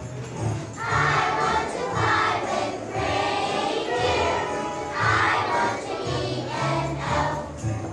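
A group of young children singing a Christmas song together over a musical accompaniment with a steady bass line and jingle bells.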